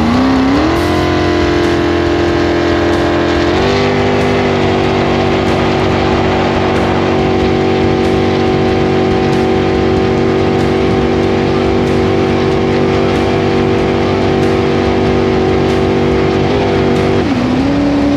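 Supercharged inboard engine of a hot boat running hard under way. It revs up in the first second, climbs to a higher steady pitch about three and a half seconds in, and holds there. It eases back in two steps near the end, with water and wind rushing past.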